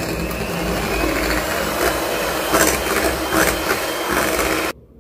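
Electric hand mixer running at its highest speed, its beaters whipping heavy cream in a glass bowl as it thickens to stiff peaks. The motor runs steadily and stops suddenly near the end.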